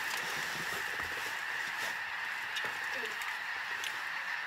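Distant massed calling of a large flock of waterfowl, ducks and geese, blending into a steady chorus, with a faint single call about three seconds in.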